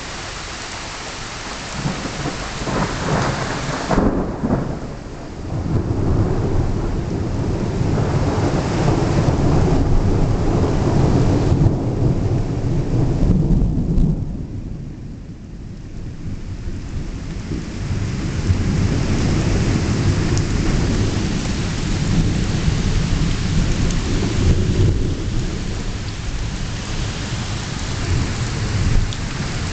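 Rain falling steadily while thunder rolls in long low rumbles, building a couple of seconds in and running for about ten seconds, easing briefly about halfway, then rumbling again for several seconds.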